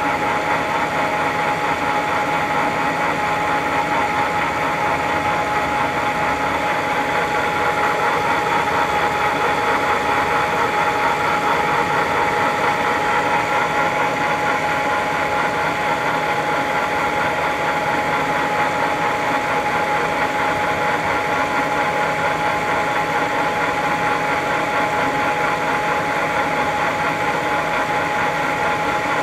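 Wilton 2035 geared-head floor drill press running with its spindle turning: a steady mechanical hum with a constant high whine over it.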